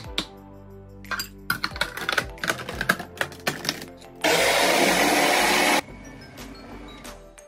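Food processor motor running in one short burst of about a second and a half, stopping abruptly, as it grinds raw mince, rice, onion and parsley into a paste. Before it, a run of clicks and clatter as the plastic lid and feed tube are fitted onto the bowl.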